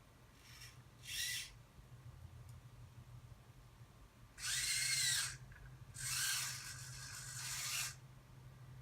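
Small hobby servo motors in a 3D-printed robot hand and wrist whirring in four bursts: two brief ones, then two longer ones with a whine that rises and falls in pitch as the servos drive.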